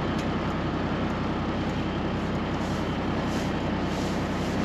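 Cabover semi truck's diesel engine idling steadily, heard from inside the cab.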